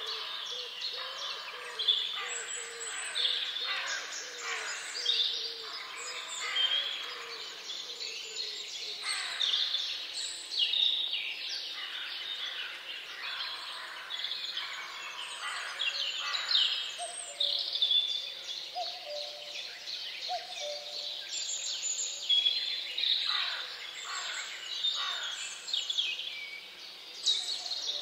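A chorus of many small birds chirping and singing without a break: a dense run of short, high, downward-sliding whistles.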